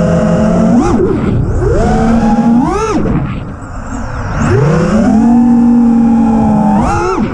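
Brushless motors and propellers of a 6S FPV freestyle quadcopter on FPV Cycle Imperial 2406 motors, heard through its onboard camera, whining with a pitch that follows the throttle. It holds steady, jumps sharply up and back about a second in and again near three seconds, drops lower and quieter for a moment, then rises and holds before a last sharp punch near the end.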